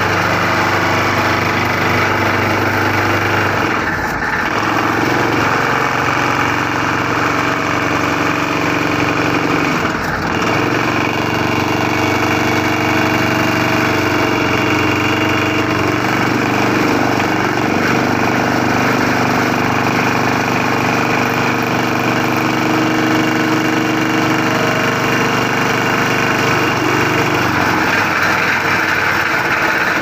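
Excavator-mounted hydraulic vibro hammer running steadily as it vibrates a steel sheet pile down, with the Hyundai excavator's engine working under load: a continuous mechanical drone with several hum tones that shift pitch, dipping briefly about 4 and 10 seconds in. The pile is meeting firmer, harder ground.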